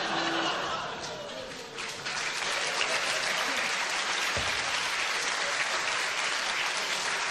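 Studio audience applauding; the clapping thickens about two seconds in and then holds steady.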